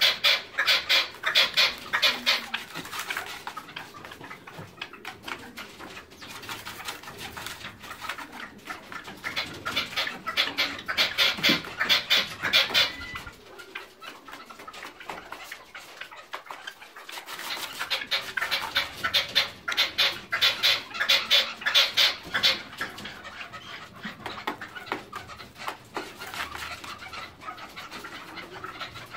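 Red-legged partridge scratching and shuffling in straw-and-sawdust bedding inside a plastic bucket, in three spells of rapid, dense scratching a few seconds long with quieter rustling between.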